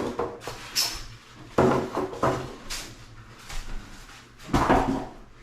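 A boxed kitchen sink and its packaging being handled and moved during unpacking: several sharp knocks and rustles, the loudest about a second and a half in and near the end.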